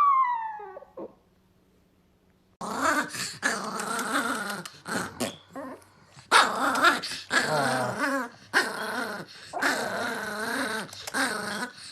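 A dog growling and grumbling in long, drawn-out stretches broken by short pauses. Before it, a falling drawn-out call fades out in the first second, followed by a brief silence.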